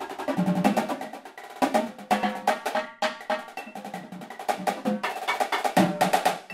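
Marching tenor drums (quads) and a snare line playing a fast, accented drum etude together at 164 beats per minute, with dense runs of strokes on several pitched drums.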